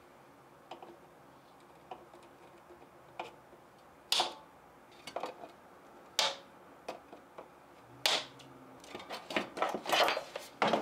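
Small hand-tool work on a small part: faint clicks, then three short scraping strokes about two seconds apart, and light tool clatter near the end.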